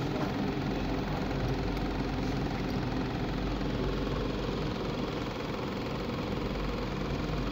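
ISA T3000 transformer test set running, giving a steady, even electrical hum with a whir over it.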